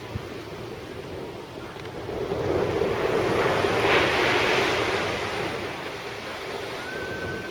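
Sea waves breaking on the beach, one wave surging up and peaking about four seconds in before washing back, with wind buffeting the microphone.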